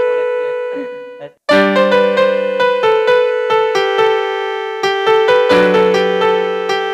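Electronic keyboard playing in a piano voice: a held chord dies away, cuts out briefly about a second and a half in, then a steady run of struck chords and notes.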